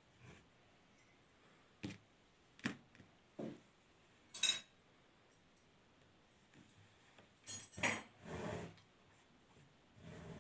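A few scattered light knocks and clinks over quiet room tone, the sharpest a short ringing metallic clink about four and a half seconds in, and a small cluster near eight seconds.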